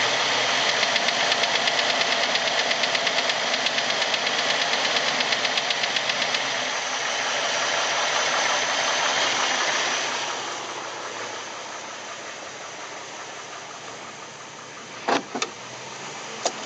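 Jeep Wrangler YJ engine running in gear with a loud, rapid, even knock from the top of the engine, a knock that only happens in gear. The knocking fades after about six seconds and the engine runs quieter from about ten seconds in. A few sharp clicks come near the end.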